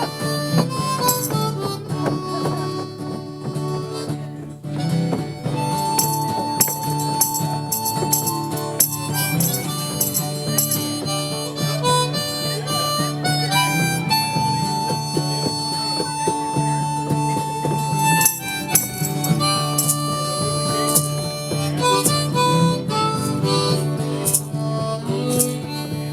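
Harmonica playing an Irish jig: quick runs of notes broken by a few long held notes, over a steady low drone.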